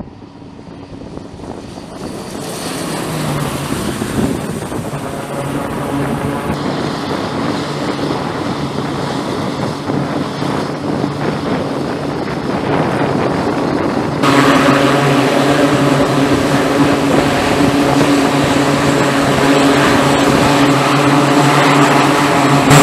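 E-2 Hawkeye's twin turboprop engines and propellers running: a steady, loud drone with a low hum. It steps louder about 14 seconds in.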